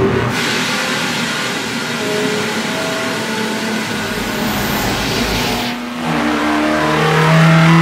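Race car engine sound effects: a loud, wide rushing hiss with engine tones beneath it. Just before six seconds in, the hiss cuts off and a strong, slightly rising engine note with several tones takes over.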